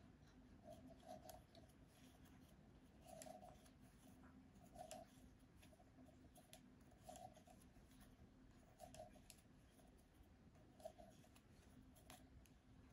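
Faint clicking and scraping of wooden knitting needles as stitches are knitted, with a small tick or scrape every second or two.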